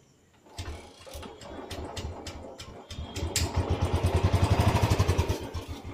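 A 350 cc motorcycle's single-cylinder engine starting about half a second in, running unevenly at first, then settling into a louder, steady thumping beat from about three seconds in. The owner points to it as a clean sound with no tappet noise.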